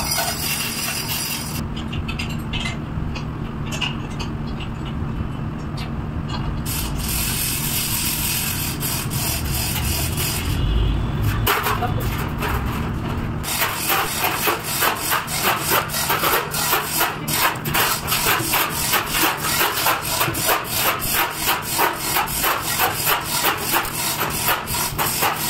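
Scraping and rubbing on the rubber patch over a cut in a tyre sidewall during a repair. In the second half it settles into a steady rhythm of about three to four strokes a second.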